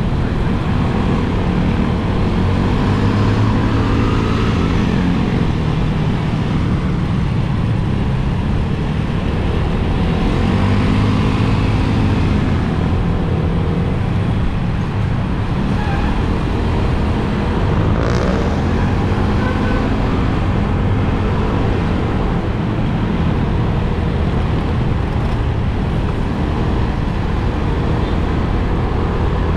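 Motorcycle engine running on the move, its note rising and falling several times with throttle and gear changes, over steady wind and road rush on the action camera's built-in microphone. A brief click a little past the middle.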